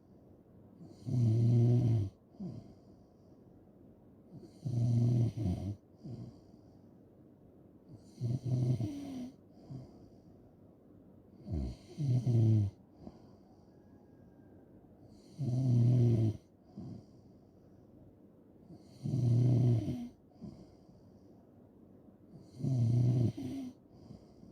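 A person snoring in a steady rhythm: seven snores, one about every three and a half seconds, each a low-pitched snore lasting about a second.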